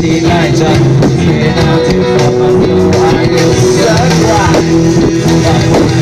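Live rock band playing loudly, with electric guitars, bass and drums and a singer, in low sound quality.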